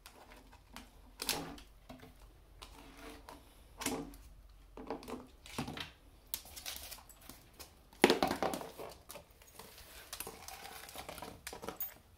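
A terrier pawing and nosing a jar of dog peanut butter across a wooden table: a run of irregular knocks, scrapes and rattles of the jar, with the loudest knock about two-thirds of the way in and a scraping after it.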